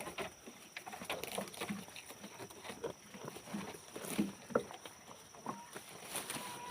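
Goats moving about, with irregular clicks and knocks of hooves and short low thuds.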